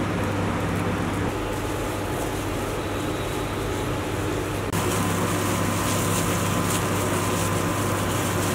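A steady machine hum. From about halfway through, a fine crackly rustle joins it: plastic-gloved hands working flour in a steel bowl.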